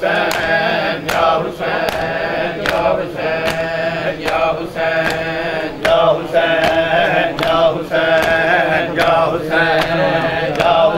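Matam chest-beating: open hands slapping bare chests in a steady rhythm, about two slaps a second, over a group of men chanting a lamentation.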